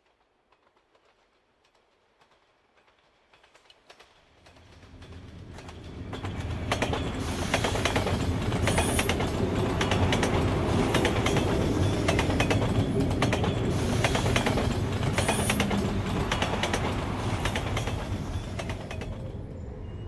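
Elevated train running along a steel viaduct. It builds up out of near silence from about four seconds in, then gives a loud, steady clatter of wheels over rail joints with a few brief high squeals, and eases off near the end.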